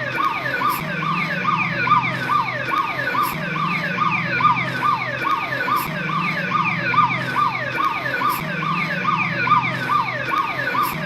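Police patrol car siren sounding continuously in a fast, repeating tone: quick falling sweeps in pitch, about three a second. Under it runs a low drone that swells every couple of seconds.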